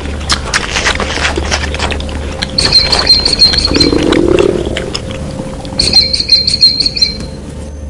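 Animal sound clip played for a giraffe: a field recording of dense clicks and rustles, with two high trilling bird-like calls and a short, low rising call near the middle.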